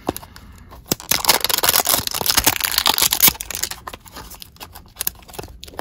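Plastic toy packaging crinkling and tearing as it is pulled open by hand: a dense crackle with sharp clicks, loudest about a second in and thinning out after the middle.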